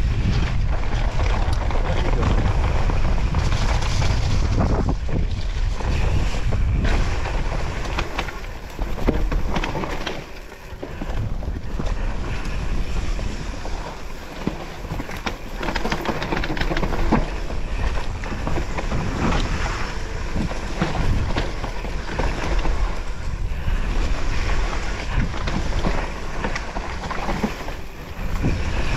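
Heavy wind rumble on the microphone with frequent rattles and knocks, as from a downhill mountain bike running over a rough trail; the rumble drops away briefly about a third of the way in.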